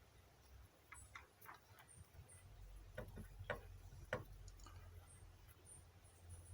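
A handful of faint, short clicks and taps, about six, between one and four seconds in, the last two the loudest, over near silence.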